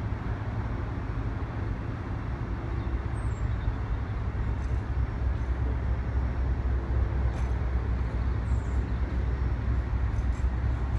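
Diesel locomotive engine running with a steady deep drone, growing a little louder about halfway through.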